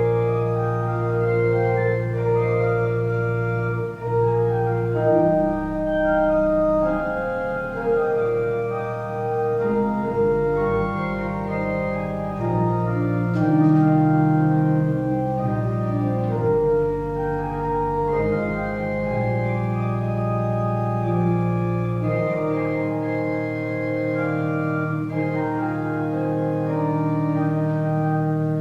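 Pipe organ playing slow sustained chords over a held bass line, the notes changing every second or two.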